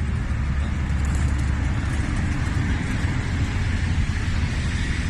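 Museum train running: a steady deep rumble with an even hiss of running noise above it.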